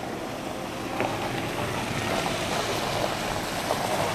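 An SUV driving slowly toward the camera on a muddy dirt track, its engine and tyres making a steady rushing noise that grows slowly louder.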